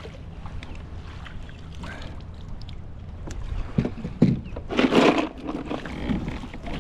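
Water lapping against a plastic kayak hull, with a few knocks and then a short burst of splashing and rustling about five seconds in as a landing net with a fish is hauled aboard.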